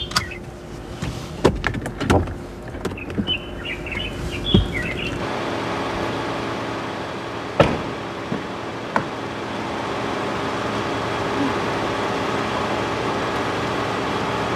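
Car door and interior handling: clicks and thumps as a passenger gets out of the car, with birds chirping outside. After about five seconds this gives way to a steady hum, broken by a sharp knock like a door shutting.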